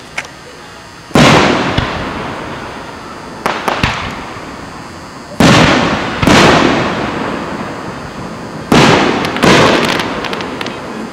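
Aerial firework shells bursting overhead: five loud booms, first one alone and then two pairs a little under a second apart, each fading out over a second or more. A quicker cluster of smaller pops comes about three and a half seconds in.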